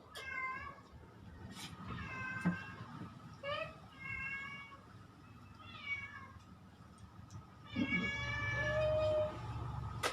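Domestic cat meowing repeatedly at the table, about five meows, with a longer drawn-out one near the end: a cat begging for food after smelling the meal.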